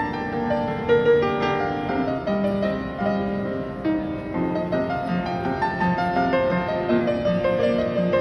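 Acoustic piano being played: a melody of single notes over lower held notes and chords, the notes ringing on and overlapping.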